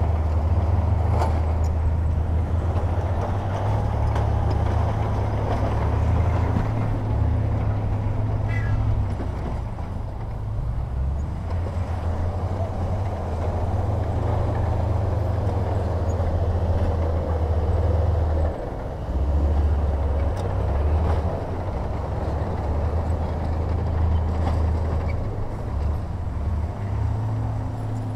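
Diesel engines of heavy earthmoving machinery running as they work: a deep, continuous rumble whose level rises and falls.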